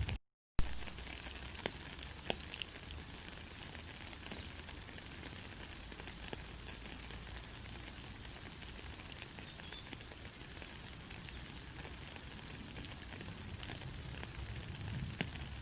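Steady white-noise hiss with a low rumble and scattered faint crackles, like sizzling. It cuts out completely for about half a second just after the start and comes back with a sharp click.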